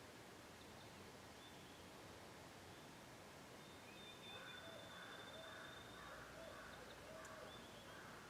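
Near silence outdoors with faint bird calls: short high chirps, one long thin whistle about three seconds in, and a run of short repeated lower notes in the second half.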